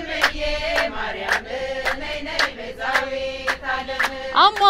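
Ethiopian Orthodox hymn to Mary: voices hold a wavering chanted line between verses over sharp percussive beats about twice a second.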